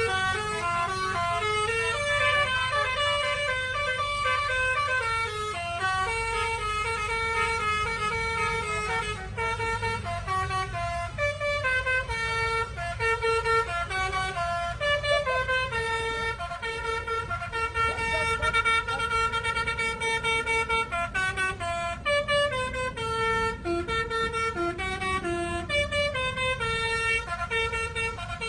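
Telolet horns on tour buses: multi-note electric air horns playing tunes, with the pitch stepping from note to note and several tones sounding at once. They play almost without pause over a low engine rumble.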